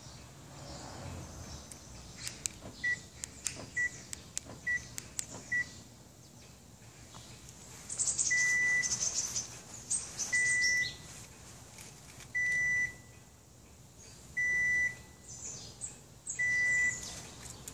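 Electronic beeps at one pitch from an aftermarket remote-start alarm system: first sharp clicks and four short beeps about a second apart, then longer beeps about every two seconds, each with a hiss.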